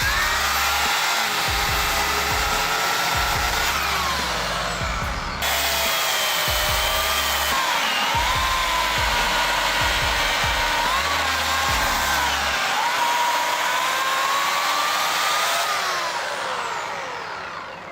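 Oregon CS1500 electric chainsaw cutting wood, its motor whine dropping in pitch as the chain bogs into the cut and rising again as it frees up, several times over. The sound fades out near the end.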